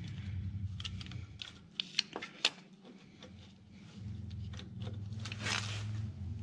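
Hands handling metal timing-chain parts on an engine: a few sharp metal clicks and clinks about two seconds in and a brief scrape about five seconds in, over a low steady hum that drops out for a couple of seconds in the middle.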